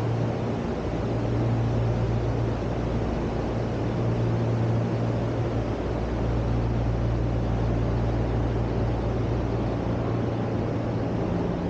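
Steady low mechanical hum under an even hiss, holding level throughout.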